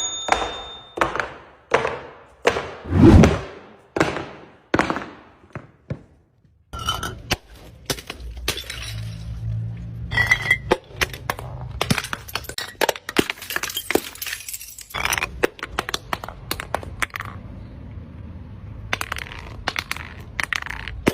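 Bottles being crushed and breaking, with glassy clinks: sharp cracks about twice a second, a heavy thud about three seconds in, then a long dense crackling and crunching as the pieces break up.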